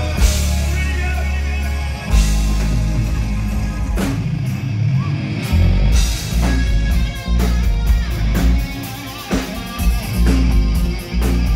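Live rock band playing loud through a PA: electric guitars over a sustained bass line, with a drum kit hitting in time.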